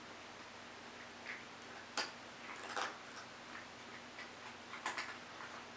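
Faint, irregular clicks and ticks over quiet room tone: one sharper click about two seconds in, small clusters near three and five seconds.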